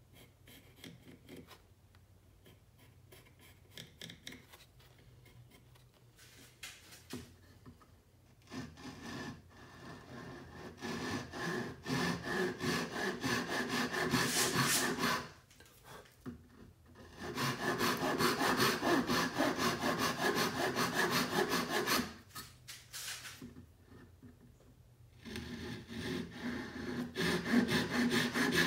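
Handsaw cutting through a small wooden block in steady back-and-forth strokes, in three runs with short pauses between them. Before the sawing, for roughly the first eight seconds, there is only faint scratching of a pencil marking the wood.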